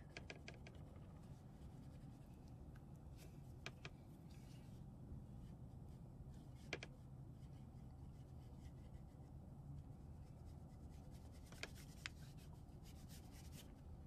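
Faint scratching of a wax crayon rubbed back and forth on paper while colouring, with a few light ticks.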